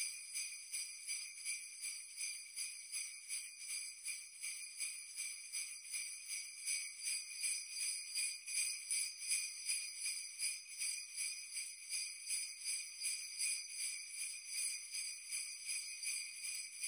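Jingle bells shaken in a steady, even rhythm, about three shakes a second, with a bright, high jingle and nothing underneath.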